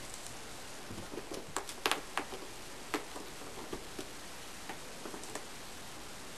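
Irregular light taps and clicks of a kitten scrambling over a wooden chair with its wand toy, most bunched about one to two seconds in, over a steady hiss.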